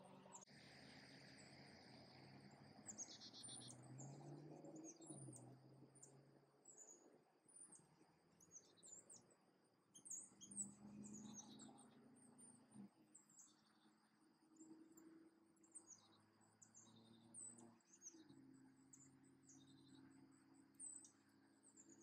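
Faint, short, high-pitched chirps of small birds, repeated at irregular intervals, over a steady high insect drone and a low hum.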